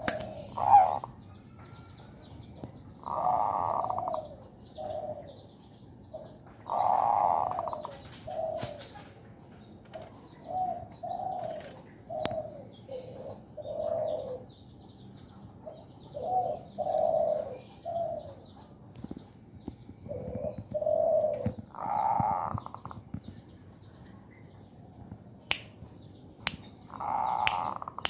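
Zebra dove cooing in a string of short notes, with several longer, louder coos among them: the courtship coo (bekur) of a bird in breeding condition. A few sharp finger clicks near the end.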